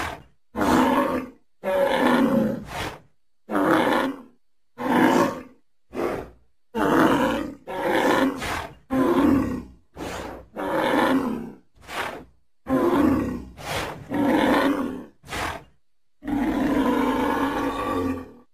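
Triceratops roar and grunt sound effects: a string of about eighteen short, separate calls, most under a second long with brief silences between them, and one longer call of about two seconds near the end.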